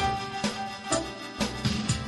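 LG KG300 mobile phone ringtone playing: an instrumental melody over a steady beat that hits about twice a second.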